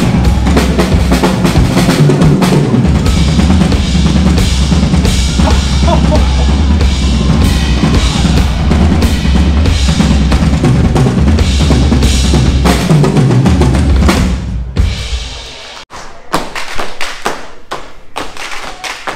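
Live stage drumming: a drum kit with heavy bass drum and snare playing loudly and densely. The drumming stops about 15 seconds in, and a run of sharp, separate taps and knocks follows.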